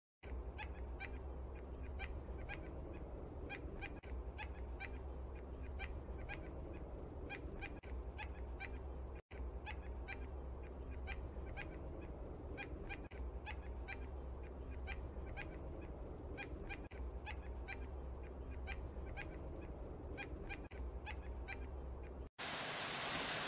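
Gray-breasted mountain toucan calling: a long run of short call notes repeated in quick succession, over a low rumble. The recording breaks off briefly about nine seconds in, and near the end gives way to a steady hiss.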